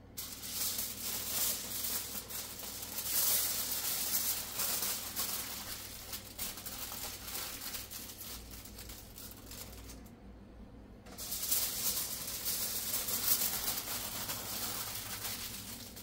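Aluminum foil crinkling as it is folded and pressed around a loaf of bread, in two stretches with a short pause about ten seconds in.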